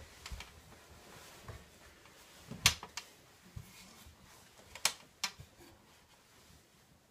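Handling noise: faint rustling broken by a few sharp clicks, the three loudest in the middle.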